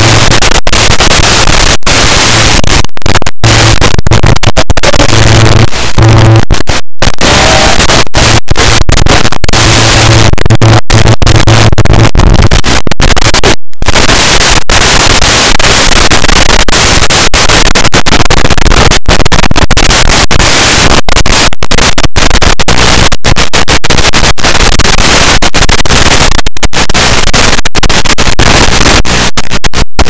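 Loud static hiss from an analog FPV video receiver's audio channel, with a low buzz coming and going and many brief dropouts to silence as the signal breaks up.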